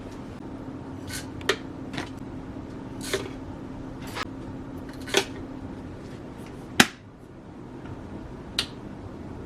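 Scattered light clicks and knocks, about eight of them, of objects being handled, over a steady low hum; the loudest knock comes about seven seconds in, and the hum stops with it.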